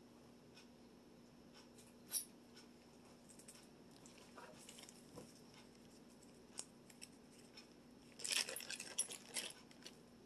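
Faint handling sounds of a bicycle bottle holder's small plastic parts: scattered light clicks and taps, with a short flurry of rattling clicks and rustling near the end. A faint steady hum runs underneath.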